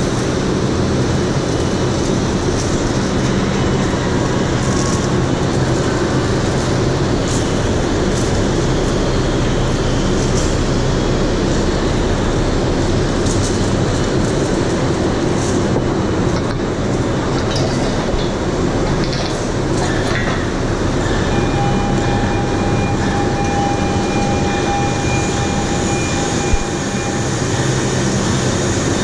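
Overhead bridge crane running while hoisting a heavy steam turbine casing: a loud, steady mechanical drone with a few light metallic clicks. A thin whine joins in for a few seconds past the middle.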